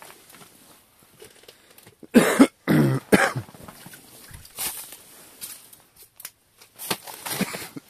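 A person coughs twice about two seconds in, the second cough with a hoarse, falling voiced tail, followed by a few quieter short knocks and rustles.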